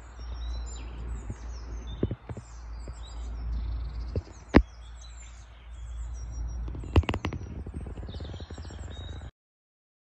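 Small songbirds chirping, many short high calls overlapping, over a steady low rumble. A few sharp clicks stand out, the loudest about four and a half seconds in, and the sound cuts off near the end.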